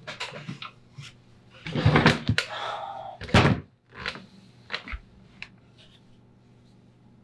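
A chair being moved and sat in at a wooden table: a few knocks and scrapes, loudest about two and three and a half seconds in, then several lighter knocks that stop about five and a half seconds in.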